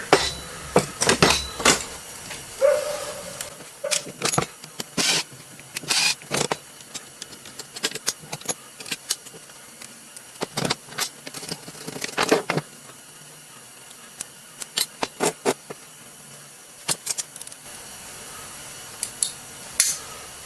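Irregular metallic clicks, clinks and knocks of hand tools working on the metal parts of a string trimmer's electric motor as it is taken apart for scrap, with one short squeak about three seconds in.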